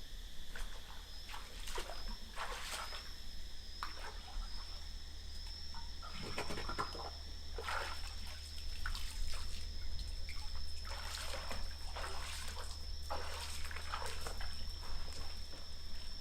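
Water splashing and sloshing in irregular bursts, over a steady high-pitched tone.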